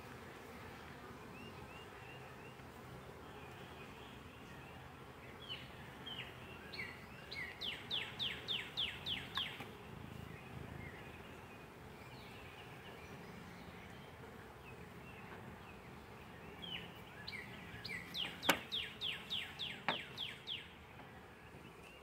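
Honeybees buzzing steadily around an opened hive. A bird twice sings a quick run of high chirps, and there are a couple of sharp knocks near the end.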